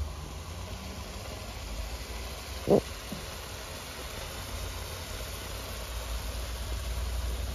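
Steady low rumble with a faint hiss, broken by one sharp knock nearly three seconds in and a weaker one just after.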